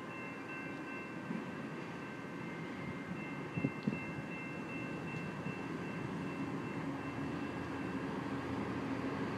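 Amtrak California GE Dash 8-32BWH diesel passenger locomotive approaching, its engine and the train's rumble growing slowly louder. Thin, steady high ringing tones sound above it and break off shortly before the end, and there are a couple of short knocks about four seconds in.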